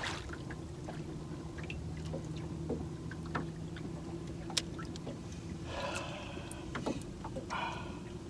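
Quiet sounds aboard a small fishing boat: a steady low hum, with scattered light clicks and knocks and two short rushing noises near the end.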